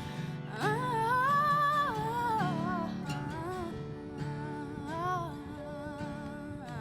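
Background music: a voice sings a slow melody over acoustic guitar.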